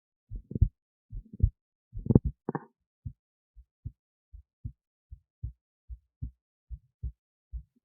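Human heartbeat heard through an esophageal stethoscope lying in the esophagus beside the heart: a steady lub-dub, a little over one beat a second, louder in the first half and softer after. A brief scratchy noise about two and a half seconds in.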